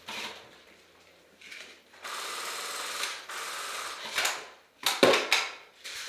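An airsoft gun firing a burst of full-auto for about a second, a fast mechanical rattle, followed by several short, louder knocks near the end.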